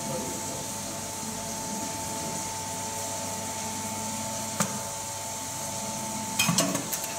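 J.A.M. CPR Zero ST WP fully automatic wire cut, strip and crimp machine running with a steady hum. A single sharp click sounds about halfway through, and a quick run of sharp clacks comes near the end as its mechanism works.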